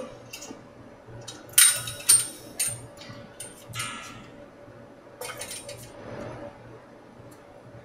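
Steel argon gas cylinder clinking and knocking against its metal hand truck as it is rocked and shifted into place: a series of sharp metallic clinks with a brief ringing, loudest about two seconds in, then sparser toward the end.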